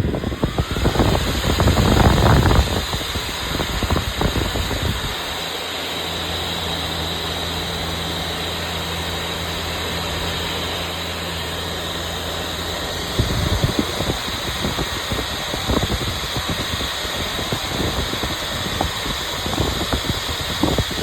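Diesel air heater's fans started and running at speed: a whine rising in pitch as they spin up, then a steady airy rush with a high whine, during an airflow test of the heater's intake with its restrictor removed. Low rumbling and bumps in the first couple of seconds, and scattered knocks later on.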